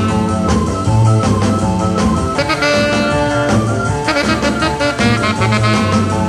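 Late-1950s instrumental rock and roll recording: a saxophone-led band with electric guitar, bass, organ and drums, over a pulsing bass line. A note is held for about a second near the middle.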